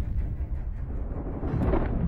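Deep, steady low rumble of trailer sound design under the title card, swelling slightly near the end.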